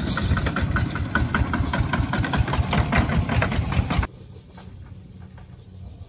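Single-cylinder diesel engine of a two-wheel walking tractor pulling a trailer through mud, running loud with a rapid knocking beat. About four seconds in, the sound drops abruptly to the fainter engine sound of a line of such tractors farther off.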